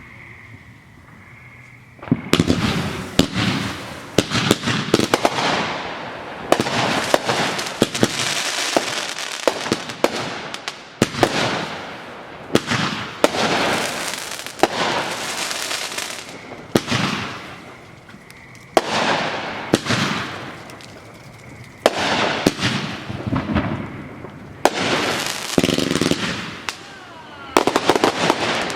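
Fireworks going off in a string of sharp bangs, each trailing into a second or two of crackling, starting about two seconds in and continuing in waves.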